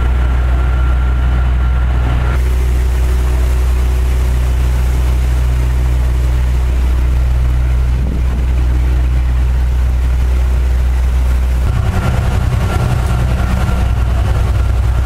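Vehicle engine running steadily, a loud low drone. Its tone shifts abruptly about two seconds in and again about three-quarters of the way through.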